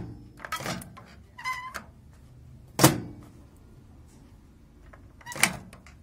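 Microwave oven's plastic door-release push-button being pressed, its latch mechanism giving a few separate clacks and knocks, the sharpest near the middle. The release is sticking and doesn't spring back to its resting position.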